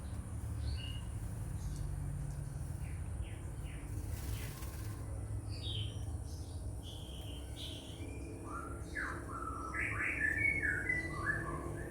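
White-rumped shama (murai batu) giving short scattered chirps, then a quick run of song notes about nine to eleven seconds in, over a steady low rumble.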